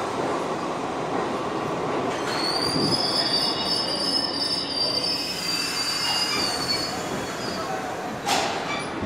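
R62A subway cars pulling out of the station past the platform, their steel wheels rolling with a steady rumble. A high wheel squeal sets in about two seconds in and lasts about four seconds. A single clank comes near the end.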